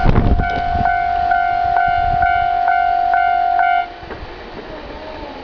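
Level crossing warning bell ringing in a steady pulse about twice a second over a held tone, while the last of the 583 series train's wheels rumble past at the very start. The bell cuts off abruptly about four seconds in as the crossing clears.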